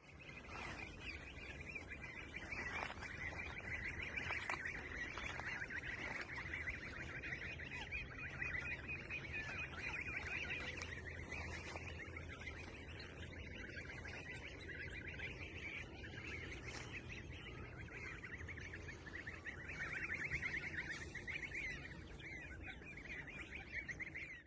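A faint, steady outdoor chorus of small animal calls: a dense, rapid trilling that swells for a few seconds near the end.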